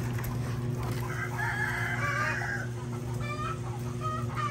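A rooster crows once, starting about a second in and lasting about a second and a half, followed by a few short chicken clucks near the end. A steady low hum runs underneath.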